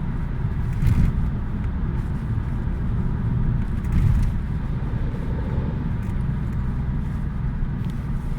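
Volkswagen Passat B6 running with a steady low rumble, swelling briefly about a second in and again about four seconds in. This is the strange noise the owner hears when pressing the accelerator.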